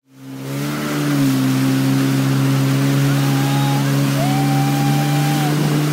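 Jet ski engine running at a steady speed under a rushing hiss of wind and spray. The sound fades in quickly at the start.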